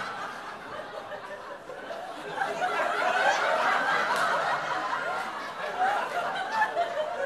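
Audience laughing, the laughter swelling about two and a half seconds in and then slowly dying down.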